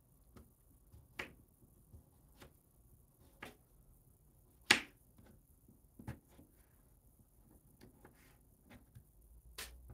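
Kitchen knife slicing small red potatoes on a thin plastic cutting board: a sparse series of sharp taps as the blade meets the board, roughly one a second, the loudest near the middle.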